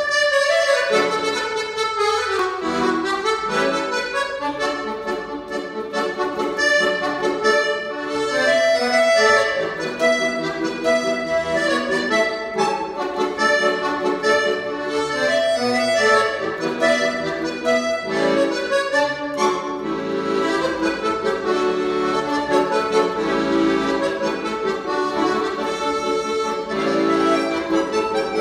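Piano accordion played solo: quick, short notes in the right hand over chords.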